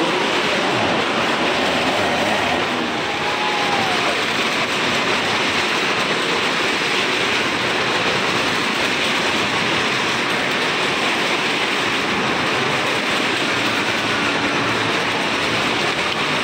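Cars driving around the vertical wooden wall of a wall-of-death drum: a continuous loud rumble of engines and tyres on the wooden planks.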